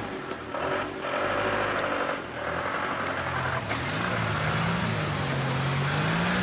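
Minibus engine running and pulling away, its pitch rising and falling as it revs through the gears, after a few knocks in the first four seconds.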